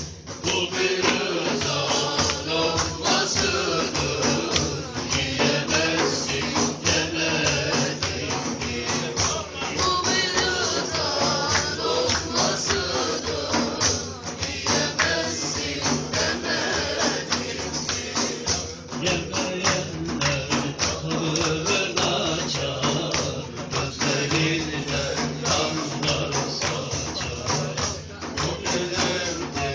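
Music with fast, steady hand-percussion beating and voices singing.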